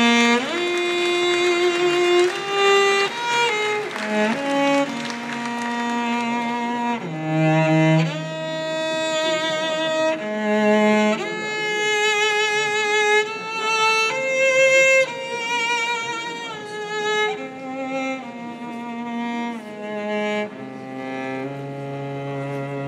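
Bowed strings, a violin leading, playing a slow melody of long held notes with vibrato over lower sustained notes.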